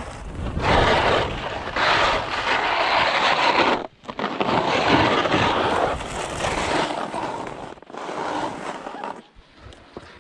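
Skis scraping across hard-packed snow in three long stretches with short breaks between, fading near the end.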